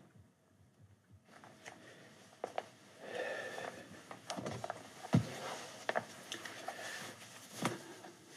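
Someone moving about a small room: rustling and handling of a chair, with light knocks and one heavier thump about five seconds in.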